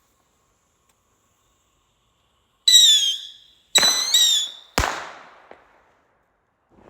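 Fireworks going off: two short, shrill whistling screeches, the first about two and a half seconds in and the second about a second later, then a sharp bang.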